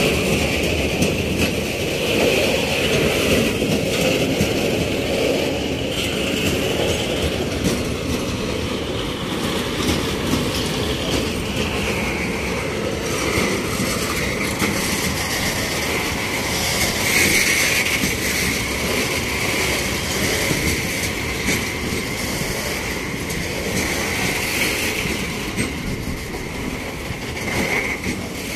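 Freight train of open high-sided wagons rolling past close by, the wheels clattering steadily over the rail joints with a high squeal running over the top; the squeal drops slightly in pitch about twelve seconds in.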